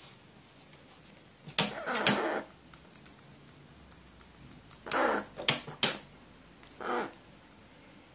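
Pet crow taking food from metal tweezers: its beak clicks sharply on the tweezers a few times, mixed with short throaty calls in three brief bouts.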